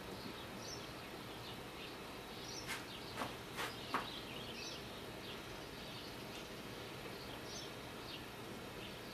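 A few light clicks and knocks, four close together about three to four seconds in, from parts or the trimmer being handled, over a steady faint hiss. Faint high chirps of small birds come and go throughout.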